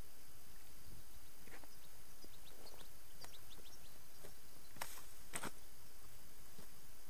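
Footsteps rustling through dry grass and reeds: a few sharp crunches over a steady background hiss, the two loudest about five seconds in.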